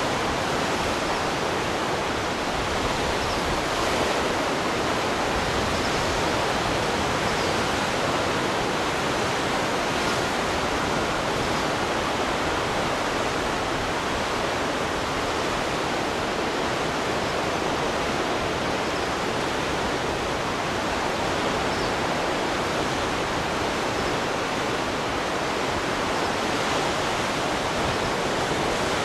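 Steady, unbroken rushing of water, even in level throughout.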